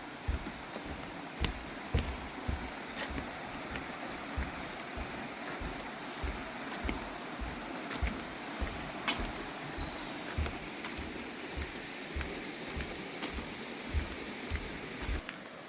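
Walking footsteps on a trail, about two or three steps a second, over the steady rush of a creek. A bird gives a few quick high chirps about nine seconds in.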